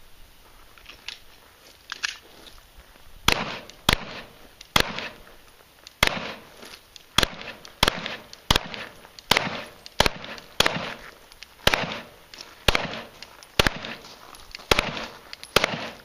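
Glock 17 9mm pistol fired in a steady string of about fifteen shots, roughly one shot a second. The first few seconds hold only a few faint pops.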